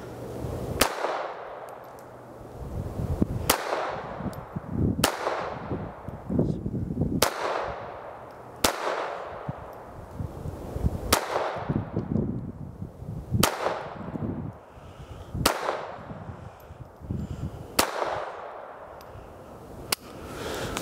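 Phoenix Arms HP22A .22 LR pistol fired ten times, about one shot every two seconds at an uneven pace, each crack trailing off in a short echo.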